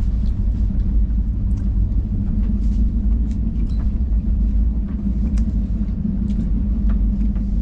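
Steady low rumble of a moving express train, heard from inside an AC three-tier sleeper coach, with a few faint clicks and rattles over it.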